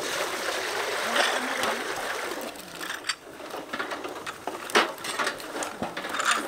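Water pouring from a plastic bucket into a steel basin, then duck eggs being washed in it: splashing with sharp clicks of eggs knocking against each other and the basin.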